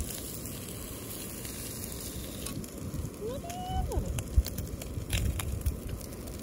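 Slices of canned ham frying in a nonstick camping pan on a gas stove, a steady sizzle, with wooden chopsticks clicking against the pan as the pieces are turned and a single knock a little past four seconds in.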